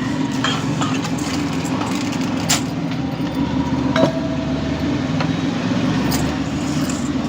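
A steady, low engine-like hum runs throughout, with a few sharp clicks or clinks about two and a half, four and six seconds in.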